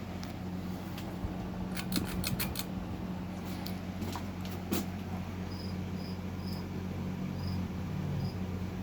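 1998 Windmere 52-inch ceiling fan's motor running with a steady low hum. A quick run of sharp clicks comes about two seconds in and a single click near five seconds, and a few faint, short, high chirps sound in the second half.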